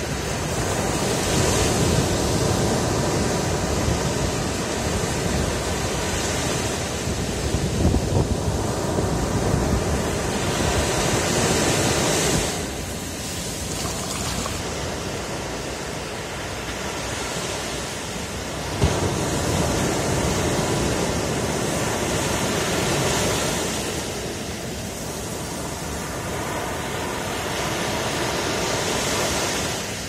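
Ocean surf: small waves breaking and washing up a sandy beach in a steady rush of water. The sound swells and eases every several seconds and drops off sharply about twelve seconds in.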